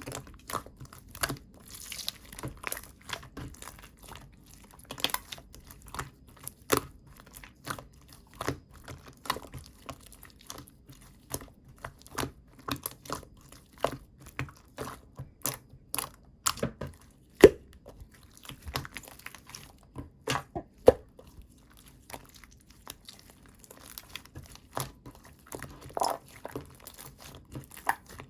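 Chewy white slime being squeezed and stretched by hand, giving off irregular sharp clicks and pops, several a second, with a few louder snaps.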